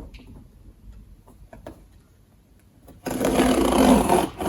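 Cardboard shipping box being opened: a few faint handling clicks, then about three seconds in a sudden, loud, rough ripping and rubbing of packing tape and cardboard.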